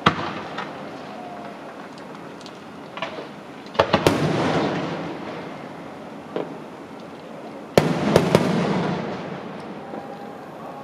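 Fireworks bursting overhead. There is a bang at the start and a few smaller pops, then a cluster of loud bangs about four seconds in and another about eight seconds in. Each cluster trails off in a fading crackle and rumble.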